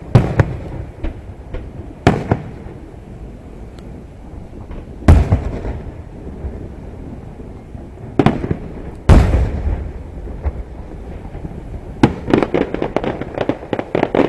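Aerial fireworks shells bursting with sharp booms every few seconds, the biggest followed by a low rumble. Near the end comes a quick run of many smaller pops and crackles.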